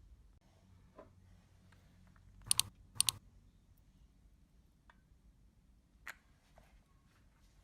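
A few sharp clicks and taps on a quiet background. Two quick double clicks about two and a half and three seconds in are the loudest, with a single click near six seconds and fainter taps in between.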